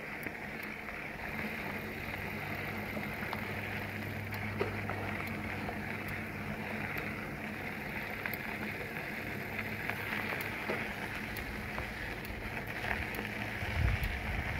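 Bicycle riding along a trail: a steady hiss of tyres rolling, with scattered small ticks and a faint low hum for much of the time. Wind buffets the microphone near the end.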